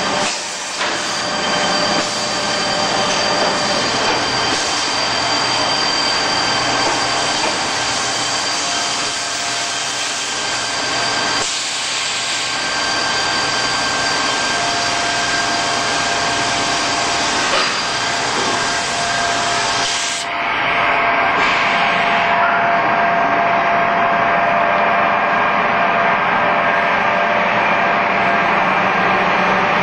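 NTC ZV5000 vertical machining center running a cutting cycle, its spindle working over the part with coolant spraying: a steady hiss with a few steady whining tones through it. About two-thirds of the way through the sound shifts, losing its highest hiss.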